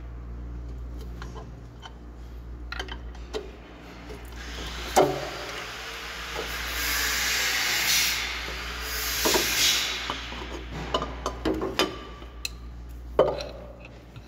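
Metal clicks and knocks of hand tools on a Caterpillar 3406B diesel's injection pump front cover as it is worked loose from its stuck gasket. The loudest knock comes about five seconds in, followed by a few seconds of scraping noise.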